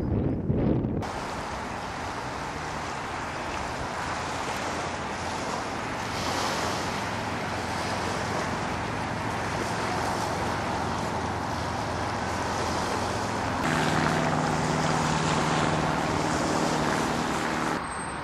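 Steady wash of sea and wind on the shore. A low engine hum joins for the last few seconds.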